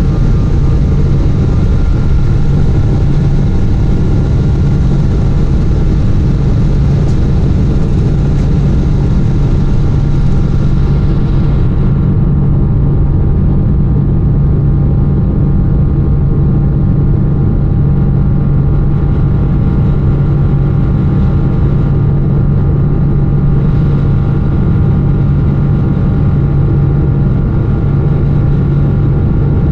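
Boeing 777-200ER cabin noise in the climb after takeoff: a loud, steady engine drone with a strong low hum and several faint steady whining tones. The hiss in the upper range drops away about twelve seconds in.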